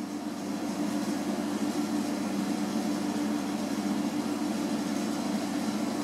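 Steady mechanical hum: a low, even drone with a light hiss over it, unchanging throughout.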